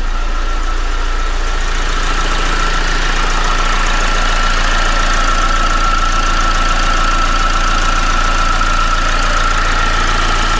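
Vauxhall Vectra 1.9 CDTi diesel engine idling steadily, with a steady high-pitched whine over the engine note. The alternator is not charging, a fault traced to its overrunning alternator pulley.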